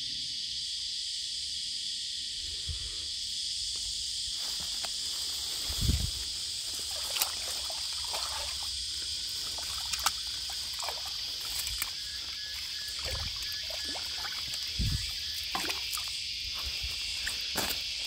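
Steady high-pitched insect drone over trickling creek water, with scattered splashes and knocks in the water. The heaviest thumps come about six seconds in and again near fifteen seconds.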